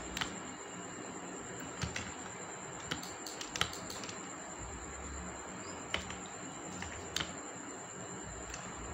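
Computer keyboard keys and mouse buttons clicking now and then, about seven sharp, irregularly spaced clicks over a steady hiss with a thin high tone.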